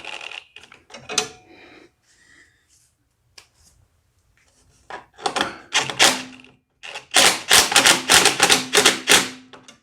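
Impact driver on a low setting starting screws into a plastic headlight housing: two bursts of rapid hammering over a steady motor tone, the second longer and louder, starting about halfway through. A few light handling clicks come before.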